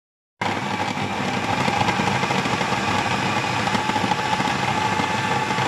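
Kenwood food processor motor running steadily at speed, blending chicken breast, toast and spices into a paste: a loud, even whir with a steady whine, starting abruptly about half a second in.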